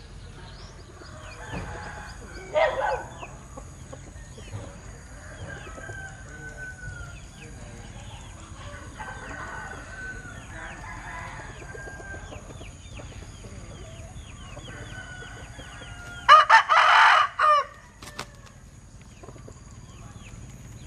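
A rooster with an unusual crow crows once, loud and broken into several short parts, about 16 seconds in. A shorter call comes near the start, and faint high chirps sound in between.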